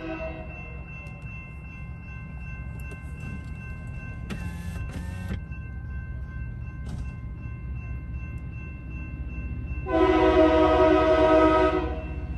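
Approaching train sounding its horn: one loud blast about ten seconds in lasting nearly two seconds, with the tail of an earlier blast at the very start. A grade-crossing bell rings steadily under a low locomotive rumble, and a short hiss comes about four seconds in.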